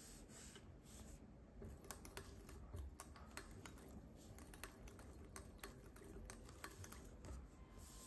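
Faint, irregular light clicks and taps, about two or three a second, starting about two seconds in: hands handling a model Stirling engine and its propeller on a wooden base.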